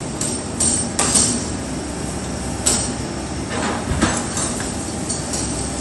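Takeuchi excavator working in demolition: a steady machine noise with several sharp clanks and crashes of debris, the loudest about a second in and another near the middle.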